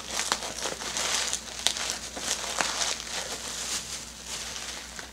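Clear plastic wrapping crinkling and crackling in many small clicks as it is handled and cut away with scissors.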